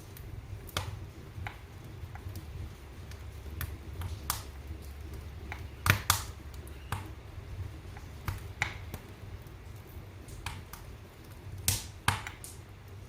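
Fire in a fireplace crackling, with irregular sharp pops over a low steady rumble; the loudest pops come in a close pair about six seconds in and another pair near the end.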